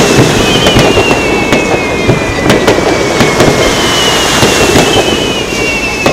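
Aerial fireworks display: a continuous rumble of shell bursts and crackle, cut by many sharp bangs. Two long, high whistles slowly fall in pitch, one starting just before the other has ended and another about three and a half seconds in.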